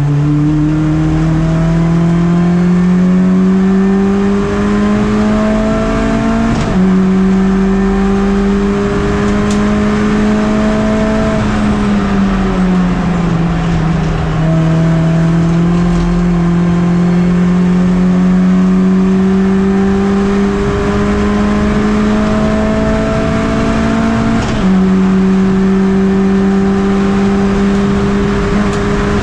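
Engine of a MINI touring-style race car heard from on board at full race pace. The engine note climbs slowly under long stretches of acceleration, with two quick gear changes, about seven seconds in and again around 25 seconds. The pitch dips around twelve seconds in as the driver slows for a corner and falls away near the end.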